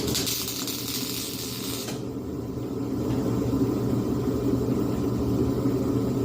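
A small engine running steadily at an even speed, with a hiss laid over it for about the first two seconds.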